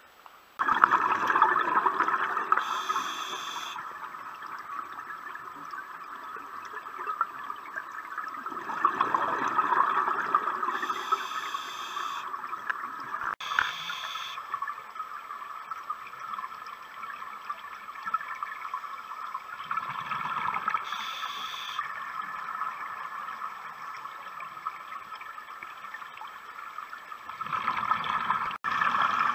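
Underwater scuba breathing through a regulator: a steady bubbling hiss that swells into louder surges of exhaled bubbles about a second in, around ten seconds in and near the end, with a few short, sharp hisses of inhaled air between them.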